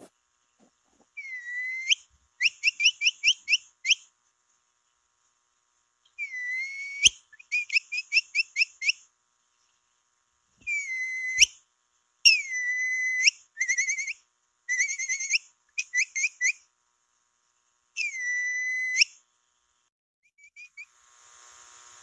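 Capybara whistling call played as a lure, repeated in bouts. Each bout is a drawn-out whistle note followed by a quick run of short chirps, about six a second, with pauses of a second or two between bouts.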